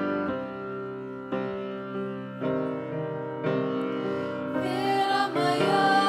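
Grand piano playing a slow introduction, one sustained chord about every second. About three-quarters of the way in, female voices join with held, wordless notes.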